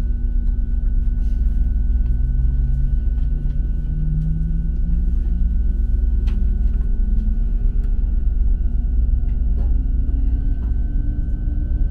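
DB ICE 3 high-speed electric train running, heard on board: a steady low rumble with a motor whine that slowly rises in pitch, and a faint steady high tone.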